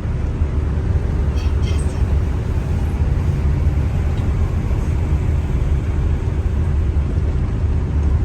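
Bus in motion: a steady low rumble of engine and road noise, with a faint steady hum.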